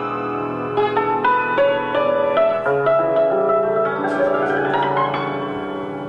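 Solo cimbalom (concert hammered dulcimer) played with two hand-held hammers. Separate struck notes ring on under a slow melody, then a quick rising run of notes starts about four seconds in.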